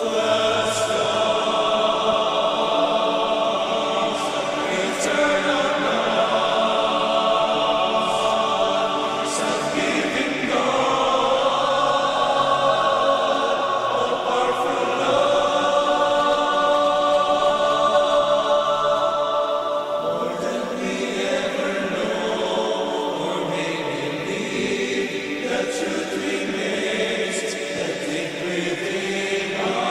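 Men's choir singing a slow hymn in long held chords that change about ten seconds in and again about twenty seconds in.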